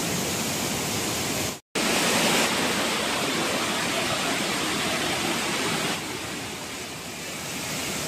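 Rushing water of a waterfall and rapids pouring over rocks, a steady even noise. It drops out for a split second about one and a half seconds in and turns a little quieter about six seconds in.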